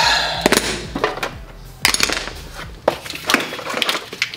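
Clicking, clattering and scraping of tools and a wiring harness being handled on a bare metal van floor, with a scrape right at the start and sharp knocks every second or so.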